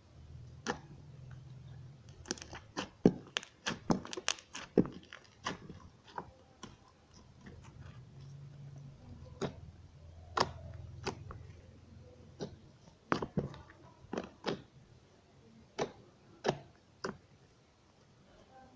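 Homemade white-glue slime being squeezed and stretched by hand, giving irregular sharp clicks and pops.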